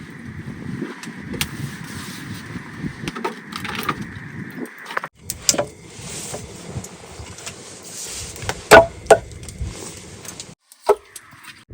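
A series of sharp cracks and knocks over a steady noisy background, the loudest two coming close together about three-quarters of the way through.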